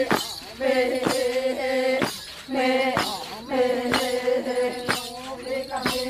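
Group chanting of dancers in repeated phrases held on a nearly level pitch, with a sharp percussive beat about once a second.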